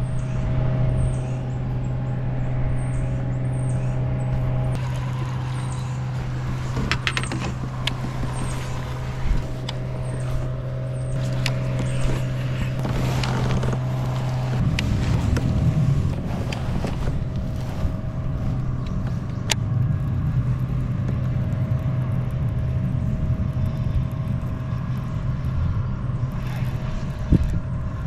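A small motor's steady low hum with a few faint clicks and knocks over it. About halfway through, the steady tone stops and an uneven low rumble carries on.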